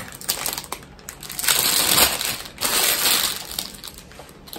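Plastic wrapping crinkling and rustling as it is handled. The rustle is loudest for about two seconds in the middle.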